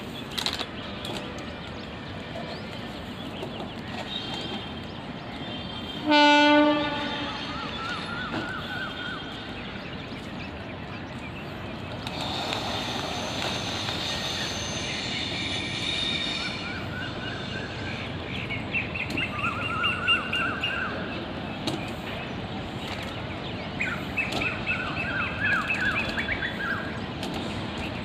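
Horn of an approaching WAP-7 electric locomotive: one short, loud blast about six seconds in, over the steady rumble of the express. A longer, higher-pitched tone follows from about twelve to sixteen seconds.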